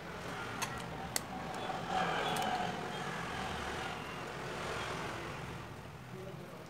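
Sharp plastic clicks as the Samsung J7 phone's body is handled and pressed, two of them a little over half a second apart about a second in, over a steady traffic-like background hum.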